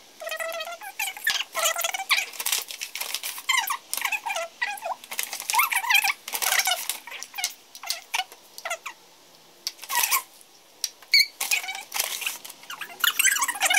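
Rapid, high-pitched, squeaky chatter: voices played fast-forward so that they sound chipmunk-like and no words can be made out.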